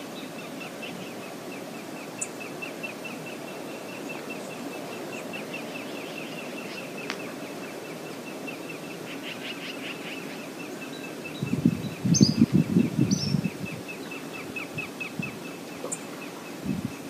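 Steady rush of river water with a high, regular ticking call repeating about four or five times a second. About twelve seconds in, a burst of low thumps lasting about two seconds, the loudest sound, with a couple of short high chirps over it.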